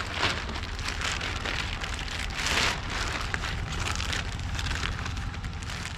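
Steady rustling and crackling of cardboard and junk being rummaged through and handled, with a louder stretch about two and a half seconds in.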